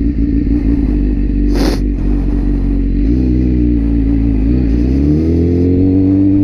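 BMW S1000RR inline-four with a full aftermarket Silmoto exhaust, running at low speed. The engine note wavers a little midway, then rises as the throttle is opened near the end. A brief hiss comes about a second and a half in.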